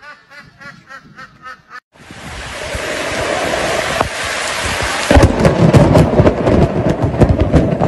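A white domestic duck calling in quick repeated notes, about four a second, for the first two seconds. Then the steady hiss of heavy rain in a downpour, with loud low rumbling joining about five seconds in.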